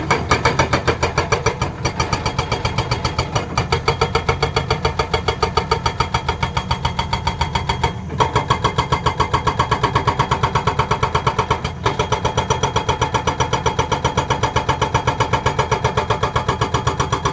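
Excavator-mounted hydraulic breaker hammering with rapid, even blows over the machine's running diesel engine, with a few brief breaks.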